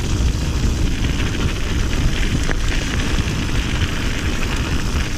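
Steady wind buffeting an action camera's microphone while riding a mountain bike, with tyres rumbling over the trail.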